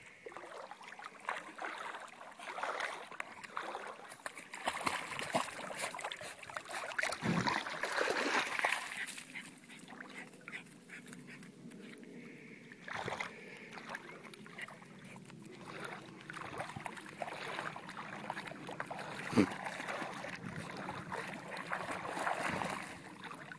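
West Highland White Terrier puppy splashing as it swims, then wades through shallow lake water.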